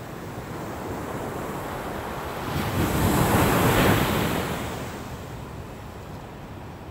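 Shore-break waves on a sandy beach: a wave breaks with a loud rushing crash that swells about two and a half seconds in, peaks around three to four seconds, and dies back into the steady wash of the surf.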